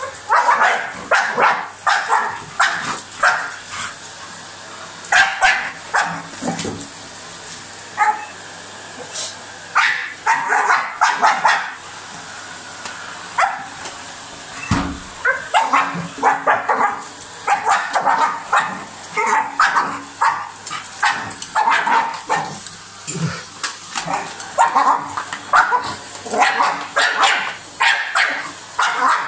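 Dog barking and yapping repeatedly in quick runs at a running vacuum cleaner, over the vacuum's steady hum.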